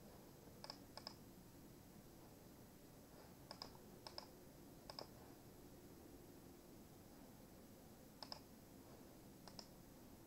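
Computer mouse clicks: about seven short, sharp clicks, spaced unevenly, over a near-silent background.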